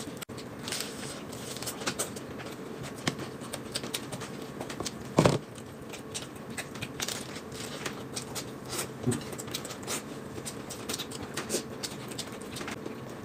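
Close-up eating sounds: crisp lettuce leaves crunching and crackling with wet chewing, a steady run of short crackles. One louder, brief sound comes about five seconds in.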